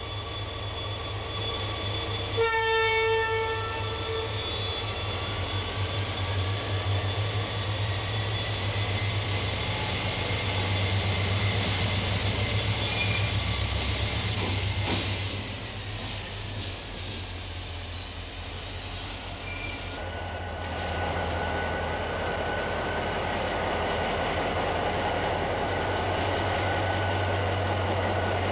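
Diesel locomotive engine running with a low drone, with a short horn blast about two and a half seconds in. The engine then works up with a high whine that rises over several seconds, holds, and falls away again. Afterwards comes a steadier running sound as the locomotive moves off.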